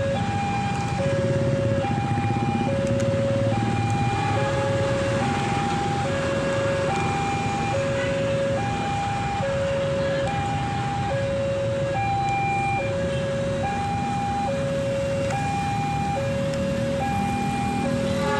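Railway level-crossing warning siren sounding a two-tone hi-lo signal, switching between a lower and a higher tone about every two-thirds of a second, with a hoarse, almost laughing sound. A steady low rumble runs underneath.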